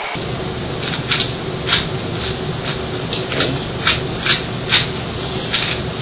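QJ Domino 2x3x3 puzzle cube being turned by hand: about ten short plastic clicks as its layers are twisted, over a steady background hum.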